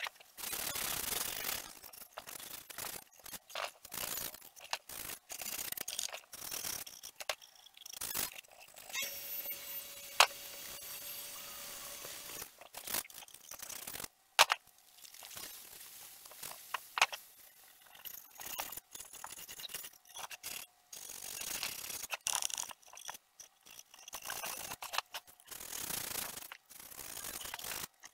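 A wooden box being handled and turned over on a workbench: irregular scraping, rubbing and knocking of wood, with sharp clicks and taps. There is a steadier faint whir for about three seconds near the middle.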